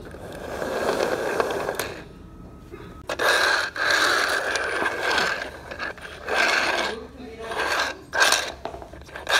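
Lightning McQueen toy car's wheels and gears whirring as it is pushed and rolls across a wooden floor. The whirring comes in several bursts of a second or so, some with a steady whine, separated by short quiet gaps.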